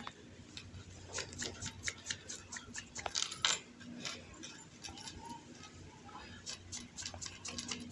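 Faint, irregular light clicking and clinking of a coin-metal jewellery chain's links as the chain is handled and rubbed with a polishing flannel.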